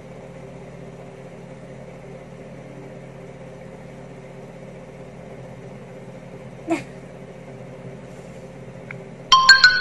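Steady low hum with faint room noise, broken by one brief sharp sound a little before seven seconds in; echoing music starts near the end.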